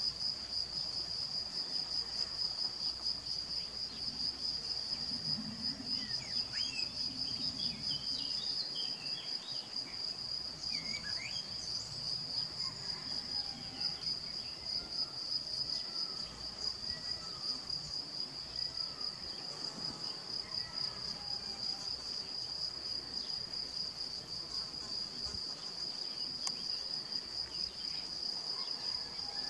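An insect trilling: a continuous high-pitched trill that pulses finely and never breaks, like a cricket or bush-cricket stridulating.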